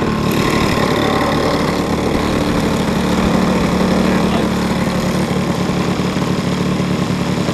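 Engine of a large radio-controlled Yak 54 model aeroplane idling steadily.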